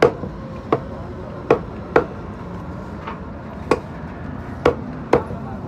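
A large knife chopping a fish into steaks on a wooden chopping block: about seven sharp, irregularly spaced chops as the blade hits the wood.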